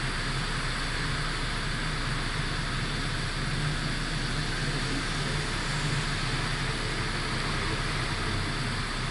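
Car driving: steady tyre and road noise with a low engine hum, unchanging throughout.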